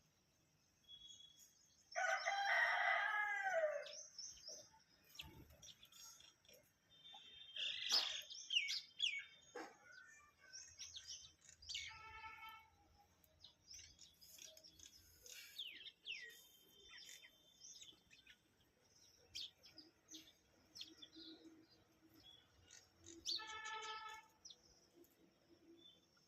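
Small birds chirping in short, scattered calls while feeding on grain. A rooster crows loudly about two seconds in, for about two seconds.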